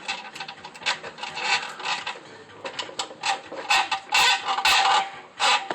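Bolt and carriage plate scraping and rattling against the car's frame as they are fished through a hole with a plastic drain-cleaner strip: a run of short rasping bursts, loudest near the end.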